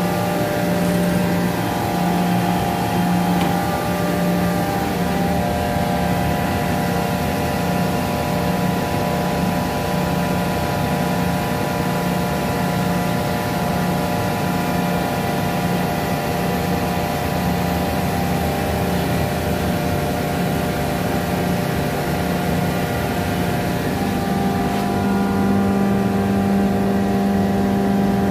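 Jaguar rotary screw air compressor running: a steady motor hum with several whining tones above it. The low hum wavers in level, then steadies and rises slightly in pitch near the end.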